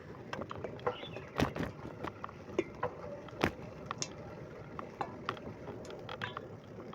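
Bicycle being ridden: irregular clicks and rattles from its parts over the road, a couple of them sharper knocks.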